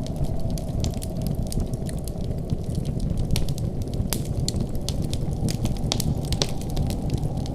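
Wood fire in a fireplace crackling, with irregular sharp pops and snaps over a steady low rumble.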